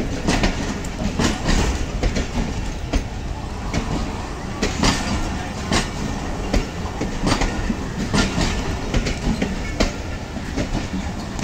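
Pakistan Railways passenger coaches rolling past on a departing train: steady low rumble of the wheels with sharp, irregular clickety-clack as they cross the rail joints.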